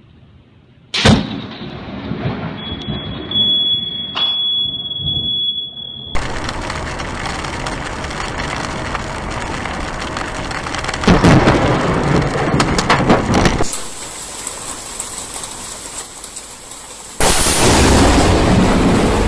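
Thunder from close lightning strikes: a sharp crack about a second in, followed by rumbling. Further thunderclaps and rolling thunder with rain hiss follow across several abrupt cuts, with loud bursts about halfway and near the end.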